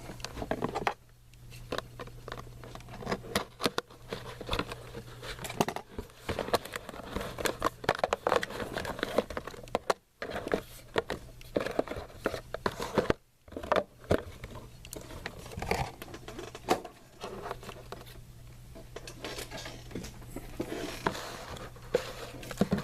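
A sealed box of baseball cards being opened by hand: wrapping and packaging crinkling and tearing, with irregular rustles and clicks of cardboard and cards being handled.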